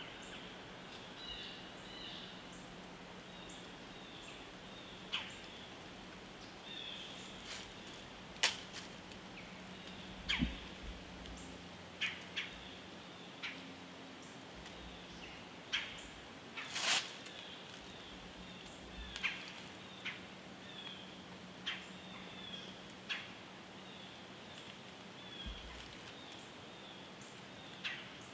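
Quiet autumn woods: scattered short, sharp clicks and crackles, about twenty of them, spread irregularly through the stretch, with a few faint bird chirps. A low steady hum sits beneath it all.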